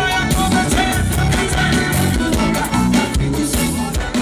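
A live forró band with a horn section and drums plays loudly through a stage PA system.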